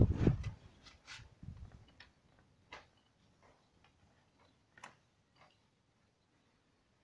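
A few scattered light metallic clicks and taps as the scooter engine's flywheel is turned by hand, drawing the new timing chain, wired to the old one, round the sprocket.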